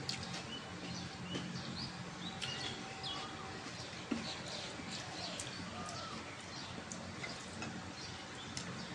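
Small birds chirping again and again in short calls and little rising and falling whistles, over a steady low hum. A single sharp click about four seconds in.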